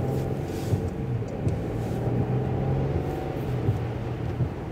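Car engine and road noise heard from inside the moving car as a steady low hum. Light ticks come through about every three-quarters of a second.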